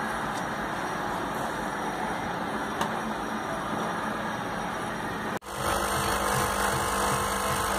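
Steady noisy background for about five seconds, then after a sudden cut a louder electrical hum with a steady low tone: the voltage stabilizer's relays humming, a sign of weak capacitors on its control board.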